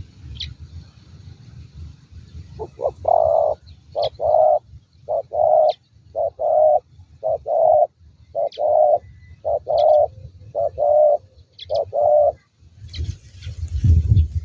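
Spotted dove cooing: a run of low coos, mostly in pairs of a short note and a longer one, repeated for about ten seconds before stopping. Faint high chirps of small birds sound now and then, and there is a brief burst of noise near the end.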